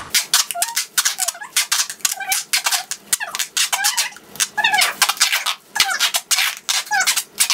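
Duct tape being pulled off the roll and wrapped, a quick run of rasping rips with short squeaks between them.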